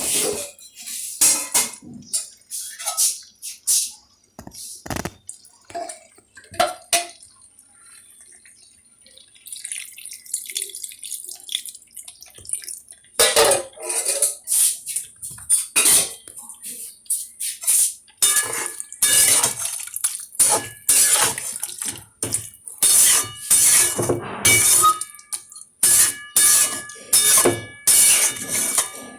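Metal spatula repeatedly scraping and knocking against a metal cooking pan as a vegetable curry is stirred, many of the knocks ringing faintly. There is a few seconds of steady hiss near the middle.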